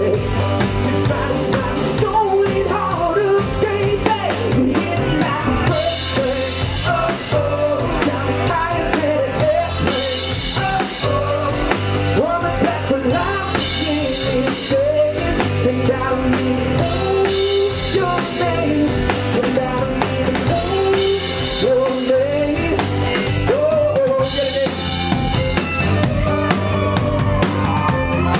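Live rock band playing: a drum kit keeps a steady beat with bass drum and snare under strummed guitar, with a bending melody line on top.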